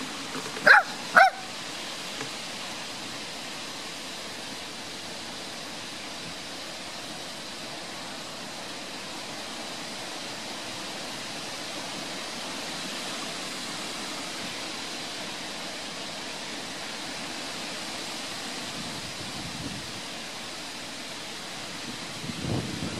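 A small dog gives two sharp, high yips about a second apart, then a steady outdoor hiss.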